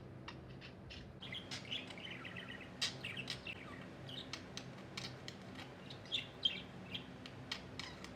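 Pet budgerigar chattering: a steady stream of short chirps, warbling runs and sharp clicks, busier from about a second in.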